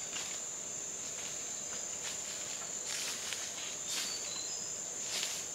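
A steady high-pitched insect drone, with footsteps crunching through dry leaf and bamboo litter, a few scattered steps.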